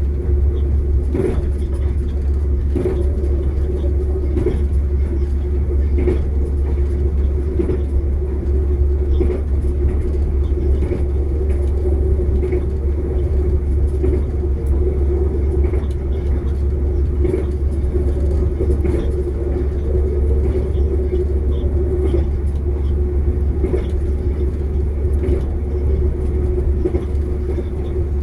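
Passenger train running along the line, heard from inside the carriage: a steady low rumble with a hum, and regular clacks about every one and a half seconds from the wheels crossing rail joints.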